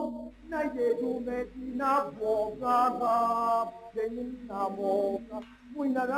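A man singing unaccompanied in a chant-like style: phrases of voice with some long held notes and short breaks between them.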